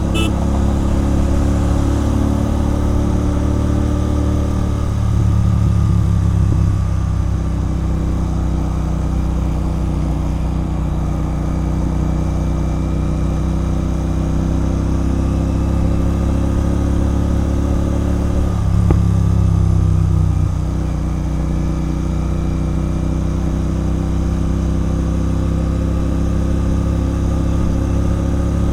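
Royal Enfield Continental GT 650's 648 cc parallel-twin running through an aftermarket Red Rooster Performance exhaust while riding at a steady pace. The exhaust note swells louder twice, about five seconds in and again near nineteen seconds.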